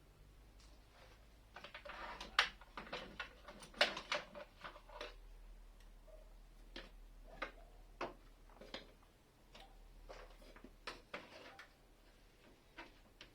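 Handling noises in a workshop: a flurry of clicks and knocks for a few seconds, then single sharp clicks and taps spaced about a second apart, as tools and parts are picked up and set down.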